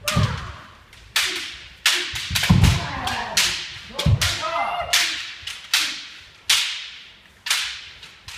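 Kendo sparring: a dozen or more sharp cracks of bamboo shinai striking armour and feet stamping on a wooden floor, spaced unevenly and echoing through the hall, with shouted kiai between some of them.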